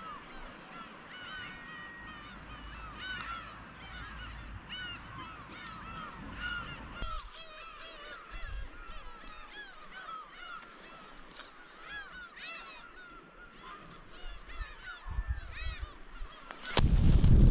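A large flock of birds calling, with many short, overlapping, rising-and-falling calls. Near the end a loud rush of wind noise on the microphone starts suddenly.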